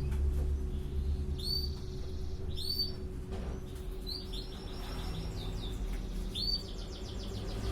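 Canary song in four short phrases of fast repeated high notes, the later two as quick trills, over a low steady background rumble.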